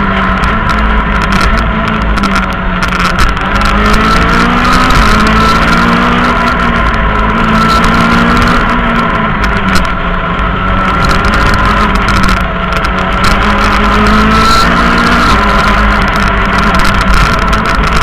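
Rally car's engine heard from inside the cabin under hard driving, its pitch rising and falling again and again as the car accelerates and eases off, with a steady high whine running over it.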